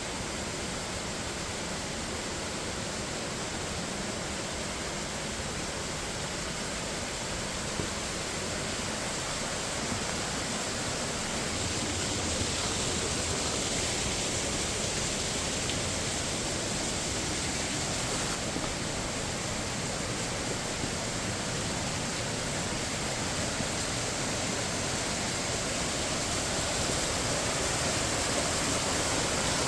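Steady rush of flowing water, a waterfall or fast stream, slowly growing louder.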